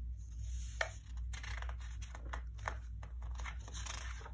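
Paper rustling with a few soft clicks as a hand handles and turns a page of a paperback picture book.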